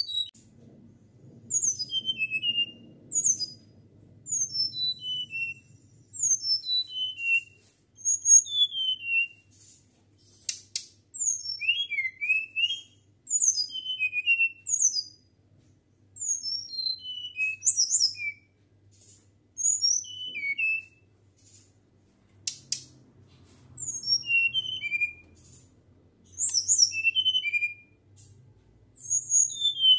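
Caged flycatcher (sikatan) singing a flute-like song in short phrases of high whistled notes that slide downward, one phrase about every two seconds.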